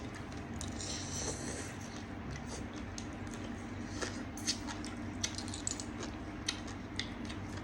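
Small scattered clicks and light mouth and food sounds of someone eating spicy seafood papaya salad, with a brief rustle about a second in, over a steady low hum.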